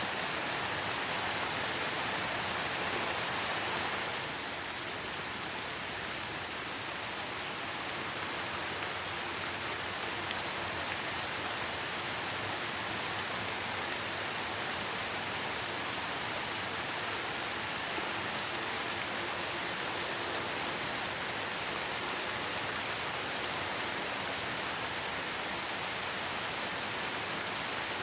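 Steady rain falling, an even continuous hiss that drops slightly in level about four seconds in, then holds steady.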